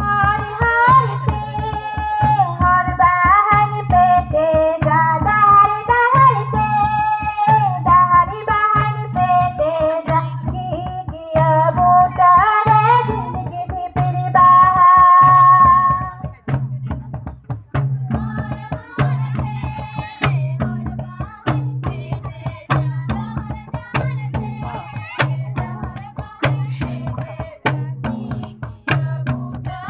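Santali Baha song: a sung melody over a steady, repeating drum beat. The singing is strongest in the first half and ends with a long held note, after which it goes on more faintly over the same beat.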